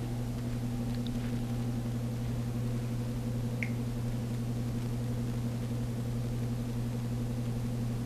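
A steady low hum over room noise, with a couple of faint small clicks about one and three and a half seconds in.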